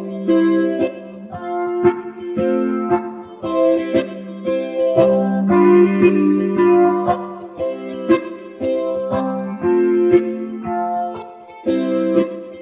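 Flight Vanguard solid-body tenor electric ukulele played through a guitar amp with phaser and chorus, reverb and EQ switched on: a run of plucked single notes and chords that ring on, with a short break near the end before playing resumes.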